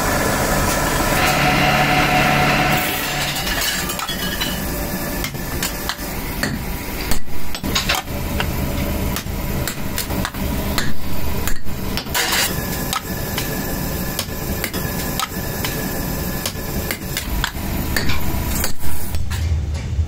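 Hammer blows striking a metal kettle lid, irregular sharp strikes a second or more apart, over a steady workshop machine hum.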